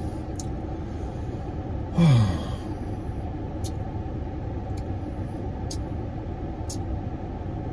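Steady low rumble inside a car with the engine idling. About two seconds in comes one short hummed 'mmm' that falls in pitch, and a few faint mouth clicks follow while boudin sausage is bitten and chewed.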